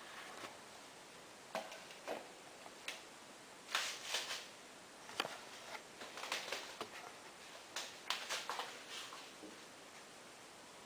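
Irregular clicks, knocks and rustles of something being handled, some in quick clusters.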